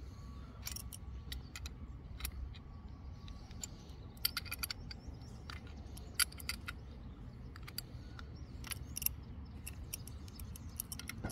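Irregular light metallic clicks and clinks of a spanner wrench being worked around a pin to tighten it in a metal pedal-kit bracket, thickest about halfway through and again near nine seconds.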